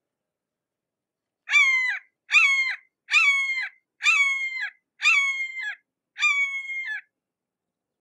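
Red-shouldered hawk calling a series of six harsh, high calls, each under a second long and dropping in pitch at its end, about one call a second.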